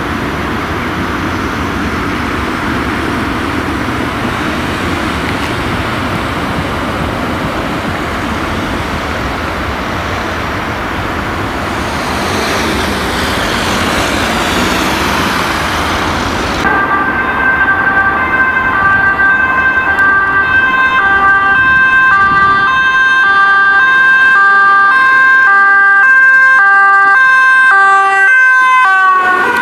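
Road traffic noise with a vehicle passing, followed after about half the time by a fire service van's two-tone siren. The siren alternates steadily between two pitches and grows slightly louder as the van approaches.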